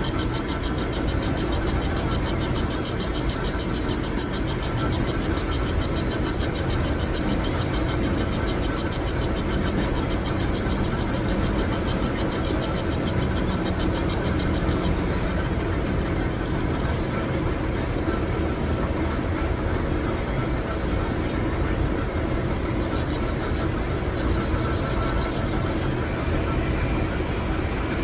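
Metal lathe running steadily, with a constant low machine noise.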